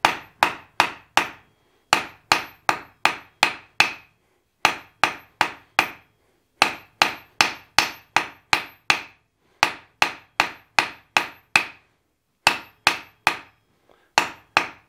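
Hand hammer striking a hot steel bar on an anvil, with each blow ringing briefly. The blows come in runs of several, about two or three a second, with short pauses between runs, as the squared bar is forged to an octagon.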